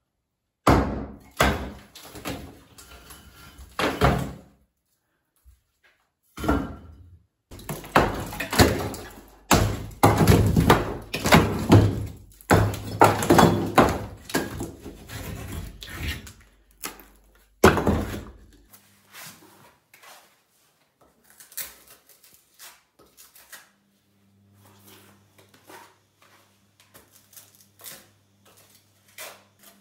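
Club hammer knocking apart a plastered masonry wall, with repeated heavy blows and chunks of plaster and brick cracking and falling. After about eighteen seconds it gives way to quieter scraping and light tapping of a trowel working mortar into a brick seam, and a low steady hum comes in near the end.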